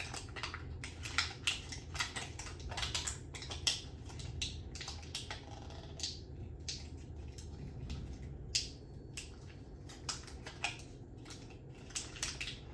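Batteries being worked loose from their plastic packaging by hand: irregular clicks, taps and crackles of plastic and metal, some sharper than others.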